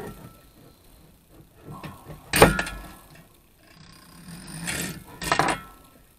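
Metal clanks and scraping as the spring-holding rod is worked out of the steel tube of a lift-top coffee table's hinge mechanism. There are a few separate knocks, the loudest about two and a half seconds in and two more near the end, each with a short metallic ring.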